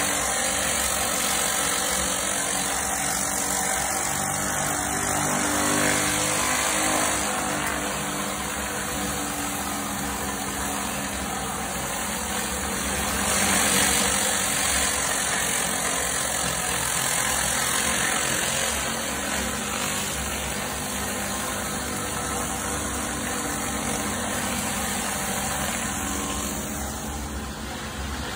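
Pressure-washer surface cleaner running over pavers: a steady hiss of high-pressure water jets under the spinning disc, over the constant hum of the pressure washer's engine.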